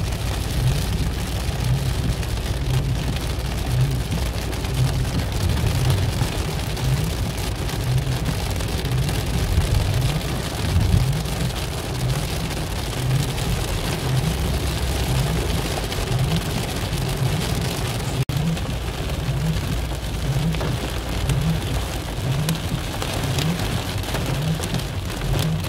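Heavy storm rain beating on a car's windscreen and roof, heard from inside the moving car as a steady, dense hiss over a low rumble from the car.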